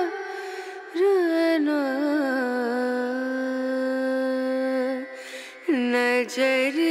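Background music: a single voice singing a slow, ornamented melody in Carnatic style, with sliding pitch bends and one long held note in the middle.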